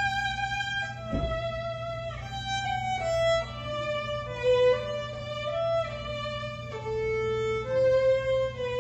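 Violin playing a slow melody, each note held for about half a second to a second, over a steady low hum. There is a brief low thump about a second in.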